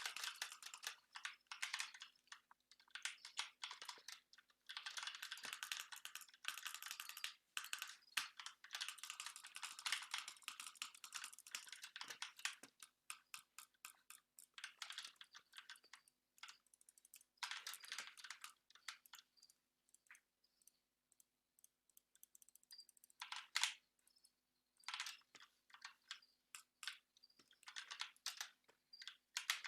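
Typing on a computer keyboard: fast, dense runs of keystrokes for about the first twelve seconds, then sparser short bursts and single key clicks.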